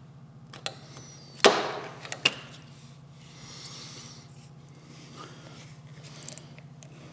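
Roof trim strip being pulled off a Subaru WRX STI, its retaining clips letting go with a sharp snap about one and a half seconds in and a smaller one just after, then a soft scraping as the strip peels up. A low steady hum underneath.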